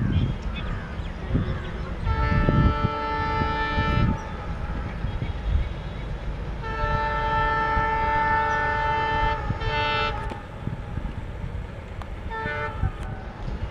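Horns of twin WDM3A diesel locomotives sounding over a low rumble: a blast about two seconds long, a longer blast of about three seconds near the middle followed straight on by a short one, and a brief toot near the end.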